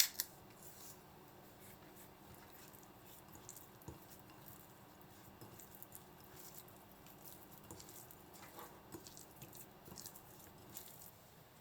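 Faint, scattered soft clicks and rustles of hands working over raw chicken tenderloins in a small kitchen.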